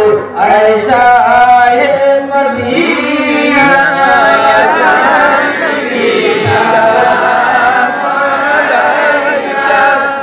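Men and boys chanting a devotional naat together, unaccompanied, with one voice on a handheld microphone.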